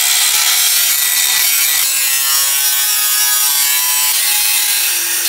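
Angle grinder with a cutting disc slicing into the top of a steel car exhaust muffler: a loud, steady grinding with several ringing tones that drift in pitch as the disc cuts.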